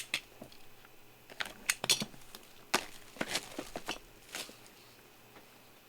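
Scattered sharp clicks and short rustles of trading cards and their packaging being handled on a table, busiest in the first half and fading out near the end.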